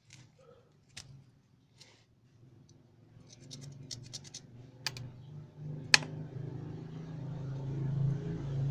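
A thin metal pick scratching and clicking against a motorcycle brake master cylinder piston and its rubber seal as the seal is pried off: scattered small clicks, then sharper ones about five seconds in and near six, the second the loudest. An engine hum grows louder through the second half.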